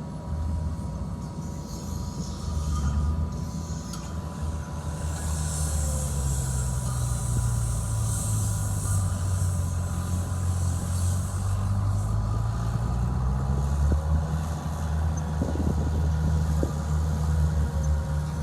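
Heavy diesel engine of earthmoving machinery, likely a bulldozer, running under load, its pitch rising and falling through the middle. A high hiss comes in about five seconds in and fades about six seconds later, over a faint steady whine.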